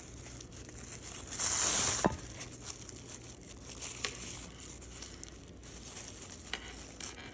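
Plastic-bag strip crinkling and rustling as it is pulled through the loops of a coiled rope basket. There is one louder, longer pull about one and a half seconds in, with a click just after it and a few small ticks later.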